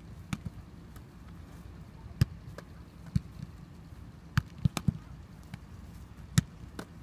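Footballs being kicked and controlled on grass: sharp thuds of boot on ball, about seven in all, with a quick run of three a little past the middle.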